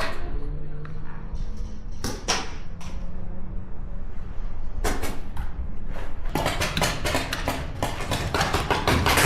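Paintball markers firing: a few scattered shots in the first half, then a rapid string of shots from about six seconds in. A steady low rumble of wind on the microphone runs under the shots.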